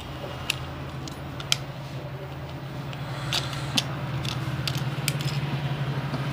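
Scattered sharp clicks and light scraping as a small tool pries a stuck mobile phone charging board loose, over a steady low hum.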